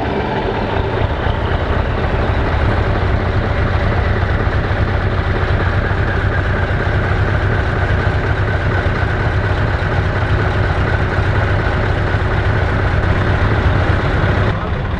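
Scania 164 T480's V8 diesel engine idling steadily and loudly.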